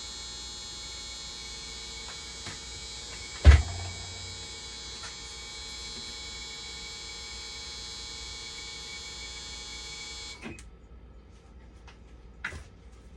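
Dialysis machine powered on and running with a steady electronic whine and hum, after a repair of its burnt power-supply wiring. A single loud knock comes about three and a half seconds in, and the whine cuts off suddenly about ten seconds in, followed by a few light clicks.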